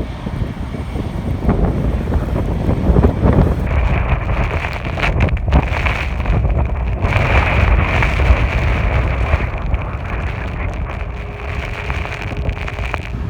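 Strong blizzard wind buffeting the microphone: a loud, gusting rumble, with a steady hiss joining about four seconds in.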